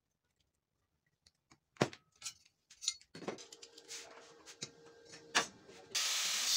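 Sharp metal knocks and clatter as steel pieces are handled and clamped on a workbench. About three seconds in, an angle grinder starts and runs with a steady hum. Near the end its disc bites into a clamped square steel tube with a loud, even grinding hiss.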